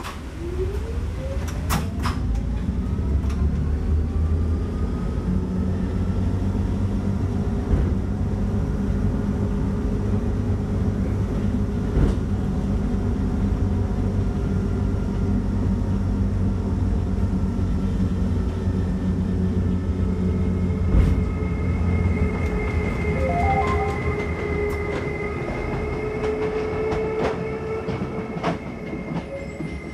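Dolderbahn Bhe 1/2 rack-railway railcar pulling away and climbing: its electric motor whine rises in pitch over the first few seconds, over a steady low rumble of the running gear, with a few sharp clunks. From about two-thirds of the way in, a steady high-pitched tone joins the rumble.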